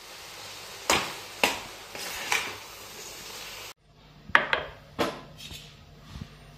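Kitchen utensils knocking and clinking in cooking: three sharp knocks in the first half over a steady hiss, then, after a sudden break, a quicker run of lighter clinks.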